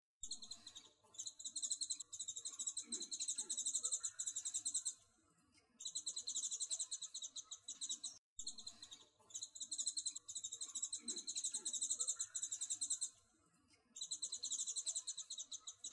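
High-pitched, fast pulsing trill in phrases of a few seconds separated by short pauses; the same eight-second stretch plays twice.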